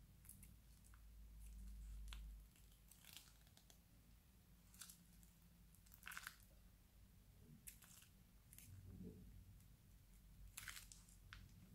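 Faint, scattered crinkles and crackles of a plastic piping bag being squeezed by hand as slime is pressed out of its tip, the loudest about six seconds in and again near the end.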